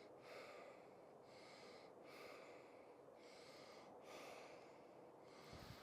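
Faint, regular breathing of a person walking, about one breath sound a second.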